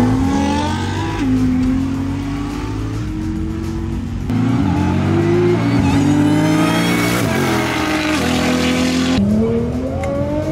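High-powered car engines at full throttle in a roll race, rising steadily in pitch and dropping back at each of several upshifts.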